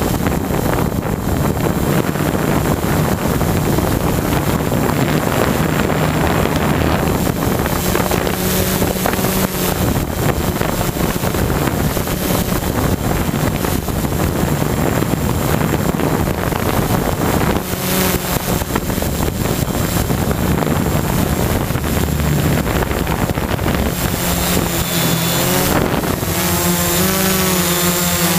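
JasGad M6 hexacopter's six electric motors and propellers running steadily, heard from the onboard camera with heavy wind rushing over the microphone. Near the end the motor pitch wavers up and down.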